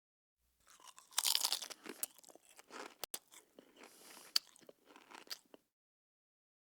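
Someone eating potato chips: a run of irregular crunches and chewing with a few sharp snaps, the loudest crunch a little past a second in.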